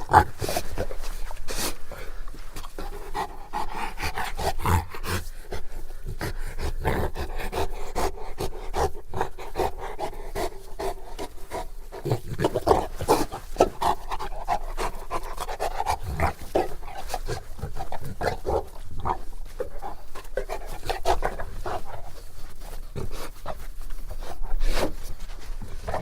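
A Bullmastiff panting, its breathing running on without pause, with many short wet clicks and smacks from its mouth throughout.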